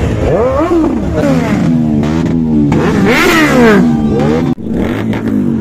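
Several superbike engines revving at once, their pitch climbing and falling over one another, with a sudden brief drop-out about four and a half seconds in.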